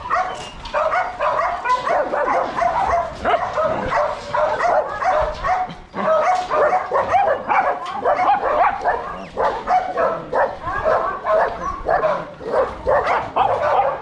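A crowded kennel of many dogs barking and yelping all at once, a dense, continuous mass of overlapping calls.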